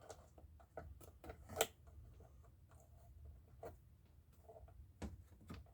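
Faint, scattered clicks and light taps of plastic chainsaw parts being handled, with the sharpest click about one and a half seconds in.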